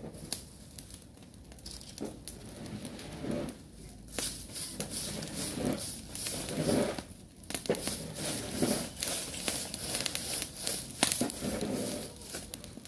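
Dry leaves rustling and crunching as a broom sweeps them over stony ground, in irregular strokes with scattered sharp crackles.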